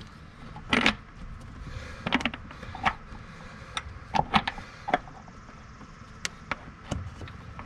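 Irregular small clicks and taps, about a dozen spread unevenly, from hands fitting a Jeep 4.0 oil filter adapter and starting its Torx bolt into the thread.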